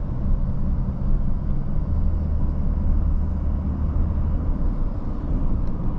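Steady engine and road rumble heard inside a moving vehicle's cabin. A low hum grows stronger for a few seconds in the middle.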